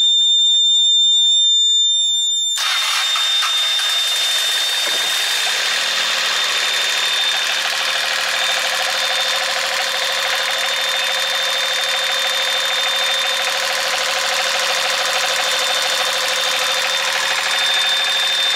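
A steady shrill warning buzzer sounds. About two and a half seconds in, a boat's engine starts and then runs steadily, with the buzzer's tone still faintly heard beneath it.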